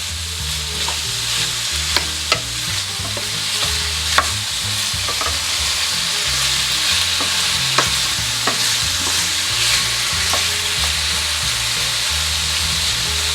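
Chopped vegetables and chicken sausage sizzling in olive oil in a sauté pan, a steady frying hiss. A few sharp clicks of a utensil against the pan as the mixture is stirred.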